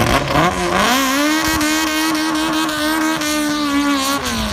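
Drag-race Lada hatchback's engine revved up and held at steady high revs on the start line before launch, the revs dropping away near the end.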